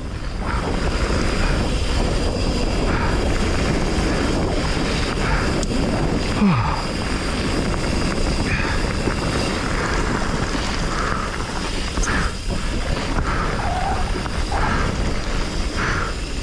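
Wind buffeting the camera microphone over the rumble of a Commencal Meta HT hardtail mountain bike riding fast down a dirt trail, with scattered short rattles from the bike.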